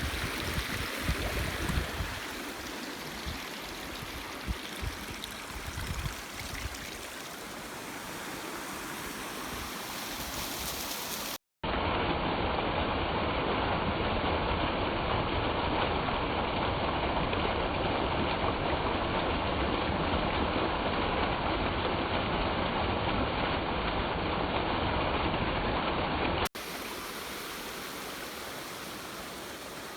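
Steady rushing water of a small waterfall. About a third of the way in it cuts abruptly to a louder, duller rush, and near the end it cuts back. Wind buffets the microphone in the first few seconds.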